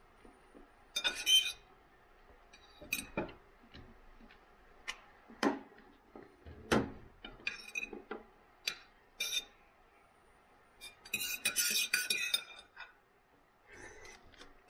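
Knife and fork clinking and scraping on a dinner plate while cutting up food, in scattered sharp clicks, with a longer stretch of scraping about eleven seconds in.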